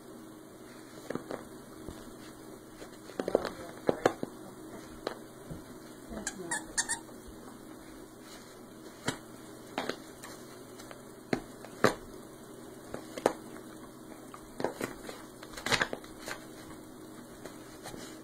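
Husky chewing and tearing at a fabric rope-ball dog toy: irregular crunches and ripping of the cloth and stuffing, a few seconds apart.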